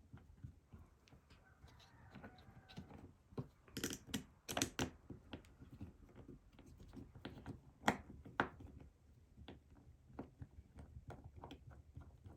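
Small metal clicks and taps of a screwdriver working on a Sargent mortise lock cylinder as the screws holding its back cap are backed out, with a few louder knocks about four to five seconds in and again near eight seconds.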